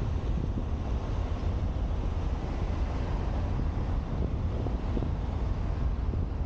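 Steady wind rumble on the roof-mounted microphone of a moving car, with road noise from the car driving along paved old-town streets.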